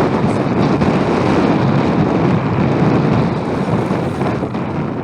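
Strong wind buffeting the microphone: a loud, steady rumble with no let-up, easing slightly near the end.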